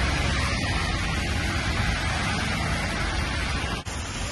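Cars driving on a flooded, rain-soaked road, their tyres hissing through the water in a steady rushing noise, with a brief drop about four seconds in.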